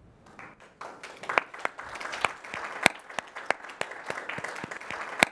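Audience applauding, starting about a second in as a dense patter of many hands clapping.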